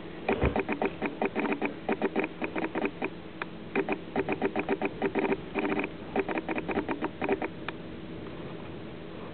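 Elderly female Leonberger asleep, making rapid clicking sounds at about eight a second in three runs of two to three seconds each. The clicks stop near the end.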